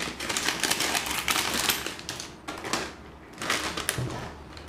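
Scissors snipping through a crinkly foil-laminated snack packet, the plastic crackling as it is cut and handled. The crinkling pauses briefly about halfway, then resumes as the opened packet is tipped, with a soft thump near the end.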